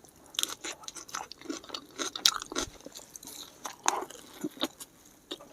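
Close-up chewing of a bite of Domino's volcano pizza, with an irregular run of short crunchy clicks and wet mouth smacks.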